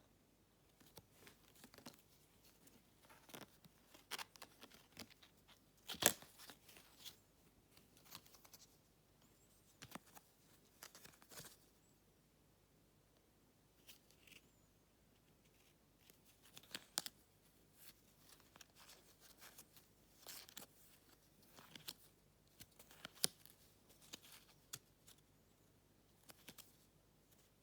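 Packaging and cards being handled during an unboxing: quiet, intermittent rustling, crinkling and tearing with scattered sharp clicks and taps, the loudest about six seconds in and again near twenty-three seconds.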